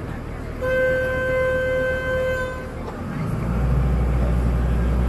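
Resort boat's horn sounding one steady blast of about two seconds, then the boat's engine throttling up to a steady low rumble about three seconds in as it pulls away from the dock.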